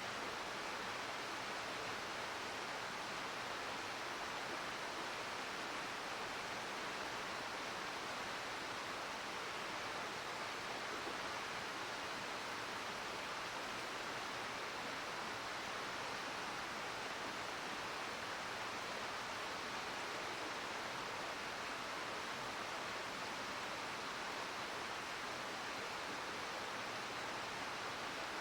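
Steady rush of a gorge river's flowing water, an even noise with no change.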